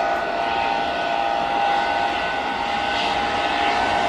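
Airbus A330 jet engines running, a steady roar with a steady whine over it.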